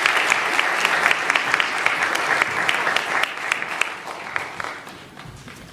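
Audience applauding: dense clapping that thins out and fades over the last couple of seconds, ending in a few scattered claps.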